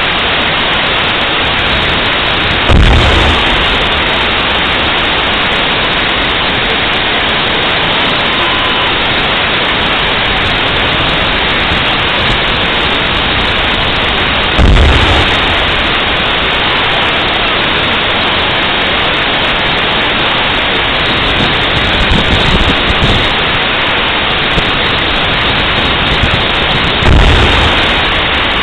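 Three heavy, deep booms about twelve seconds apart from an M1A1 Abrams tank's 120 mm main gun firing on a live-fire range, with a few weaker thuds in between. A loud steady hiss runs underneath.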